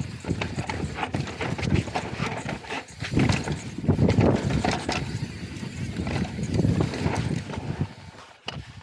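Downhill mountain bike ridden fast down a rough dirt trail: tyres on dirt and the bike rattling and knocking over roots and bumps, with wind buffeting the microphone. The noise fades near the end.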